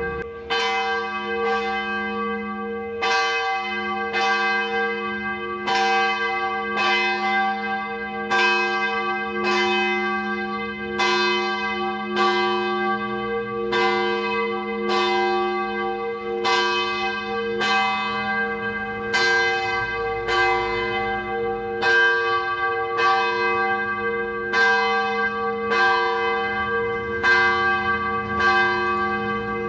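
A single church bell tolling steadily, a little under one stroke a second, each stroke ringing on into the next at the same pitch.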